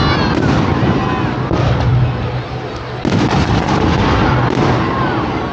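Fireworks display: aerial shells bursting in a rapid run of bangs and crackles, with a louder cluster of bursts about three seconds in.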